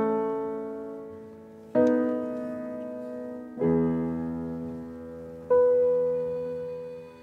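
Piano playing four slow chords, one about every two seconds. Each chord is struck and left to ring and fade.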